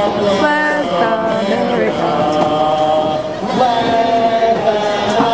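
Stadium crowd singing together, many voices holding long notes and sliding between them.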